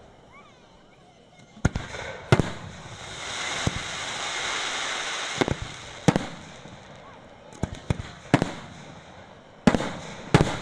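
Aerial fireworks shells bursting in a series of sharp bangs, some in quick clusters, with a long hiss swelling and fading between them around the middle.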